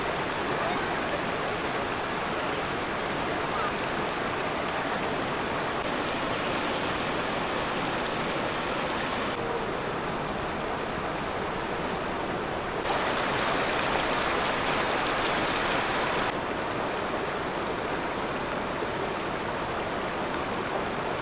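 Shallow rocky river rushing over boulders and stones: a steady sound of flowing water that shifts suddenly in level and tone a few times.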